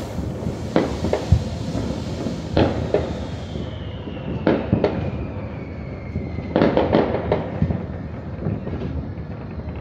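Residential fireworks and firecrackers going off: scattered sharp bangs and pops over a continuous rumble and crackle of more distant explosions, with a quick cluster of bangs about seven seconds in. A long whistle falls slowly in pitch through the middle.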